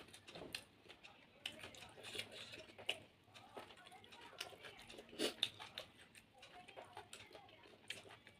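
Close-up eating sounds: irregular wet chewing and smacking clicks as food is eaten, with a few sharper smacks.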